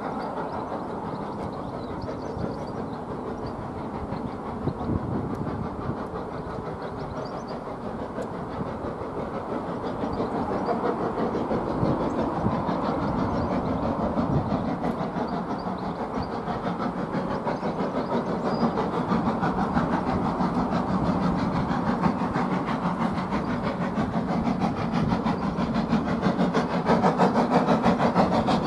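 Steam locomotive approaching along the line, unseen, its running sound growing steadily louder.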